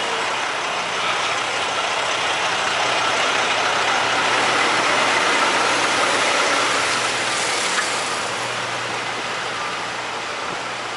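Semi truck's diesel engine idling with a steady low hum, under a broad hissing noise that swells toward the middle and fades off near the end.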